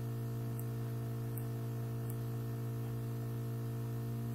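Steady electrical hum with a faint hiss, with faint high ticks repeating a little under once a second.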